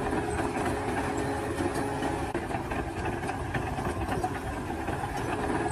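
Heavy construction machinery's engine running steadily: a continuous low rumble with a faint steady hum, no revving.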